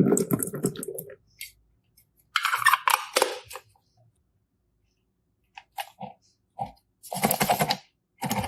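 Slime being squished and pressed by hand, giving bursts of wet crackling and popping about a second long, separated by pauses with a few single pops.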